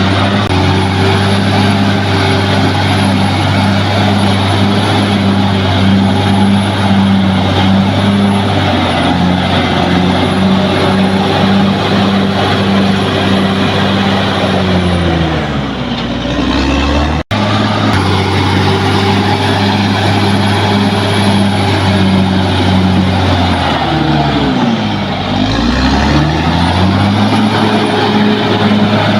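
Bulldozer's diesel engine running hard at steady revs. Its pitch sags and comes back up twice, and the sound cuts out for an instant just past halfway.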